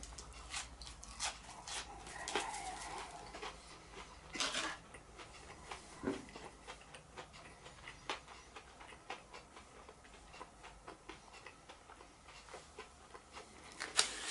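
A person chewing food close to the microphone: scattered small wet mouth clicks, with a brief louder rustle or breath about four and a half seconds in.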